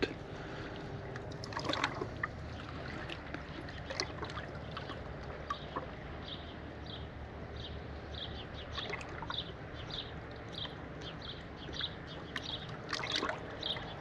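Sea water lapping and sloshing at the water's edge, a steady low wash. From about six seconds in, a high chirp repeats about twice a second.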